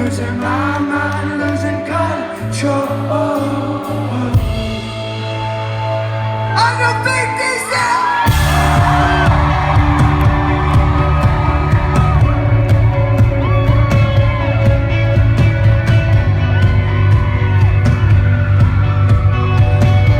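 Rock band playing live with singing. About eight seconds in, the full band comes in heavier and louder, with a strong bass.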